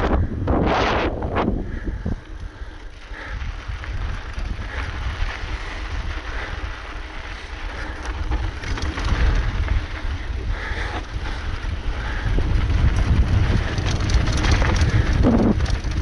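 Wind buffeting the microphone while riding a mountain bike downhill, over the rumble and rattle of the tyres on the trail.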